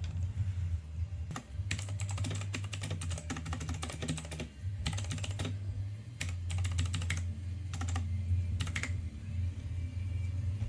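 Typing on a budget 60% mechanical keyboard with clicky Outemu Blue switches: quick runs of sharp key clicks in several bursts with short pauses, stopping about nine seconds in. A steady low hum runs underneath.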